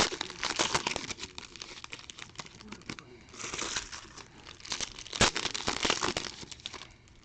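Trading card pack wrappers being torn open and crinkled by hand: a dense run of crackling with many small snaps, a short lull about three seconds in, and one sharp snap about five seconds in.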